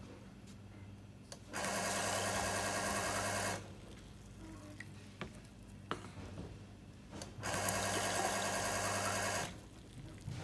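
Single-head liquid filling machine's pump motor running in two dosing cycles of about two seconds each, with a rapid, even mechanical rhythm, each one filling a bottle. A steady low hum continues between the cycles, along with a few light clicks.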